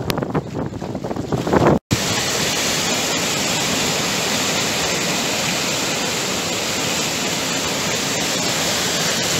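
Wind gusting against the microphone. About two seconds in, an abrupt cut switches it to a steady, even rushing noise that holds at a constant level.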